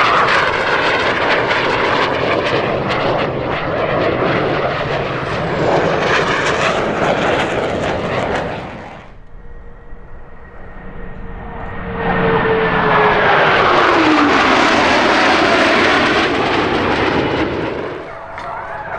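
Jet noise from Blue Angels F/A-18 Hornets flying past: loud for the first several seconds, easing off briefly, then building again as another pass comes by. The engine whine drops in pitch as the jets go past, then fades near the end.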